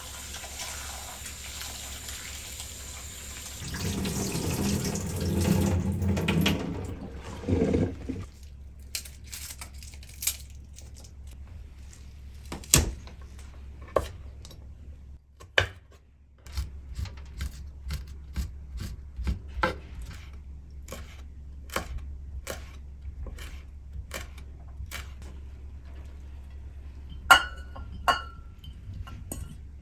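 Tap water running for several seconds, then a kitchen knife chopping garlic on a wooden cutting board in irregular single strokes. Near the end, a sharp ringing clink of ceramic dishes.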